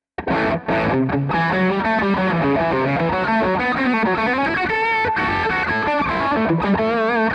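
Electric guitar played through a Fractal Audio FM9 amp-modeler preset: a phrase of moving single notes, some with vibrato, starting a moment after a brief silence.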